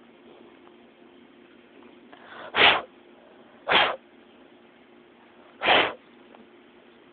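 A puppy sneezing three times in sharp, short bursts, the first two about a second apart and the third about two seconds later.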